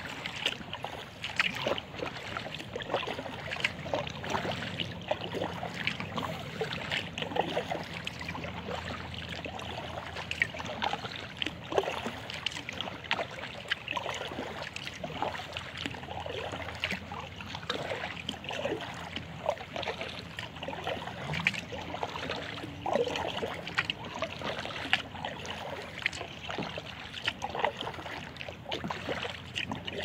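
Kayak paddle strokes in calm river water: repeated light splashes as the blades dip in, with water trickling and dripping off them.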